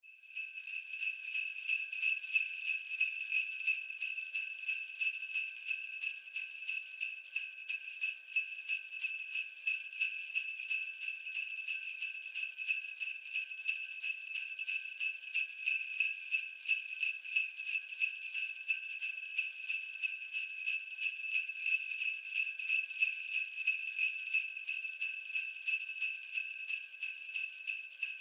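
Sleigh bells shaken in a steady, even rhythm of about three shakes a second, the bells ringing high and bright without pause.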